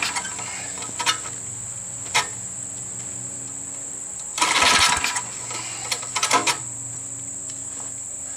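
Tecumseh V60 engine on an old Snapper riding mower being turned over in short bursts, trying to start without catching, with a few sharp clicks between attempts. Crickets chirp steadily in the background.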